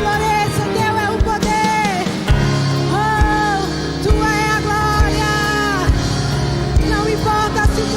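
Christian worship song played by a band, with a drum kit keeping a steady beat under a melody of long held notes.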